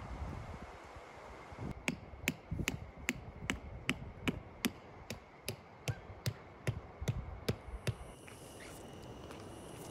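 A rock knocking a tent stake into hard ground: about sixteen sharp, evenly paced strikes, roughly two and a half a second, that stop about eight seconds in.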